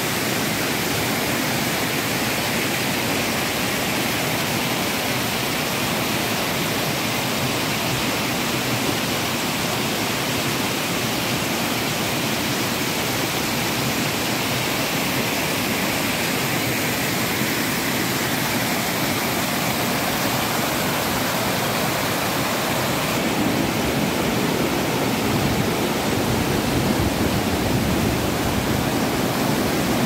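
Stream water rushing and splashing down over rocks in small cascades, a steady roar of white water. It grows a little louder and fuller about three-quarters of the way through.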